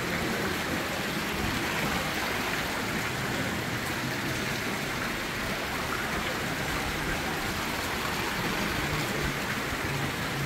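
Running water from garden fountains, splashing steadily.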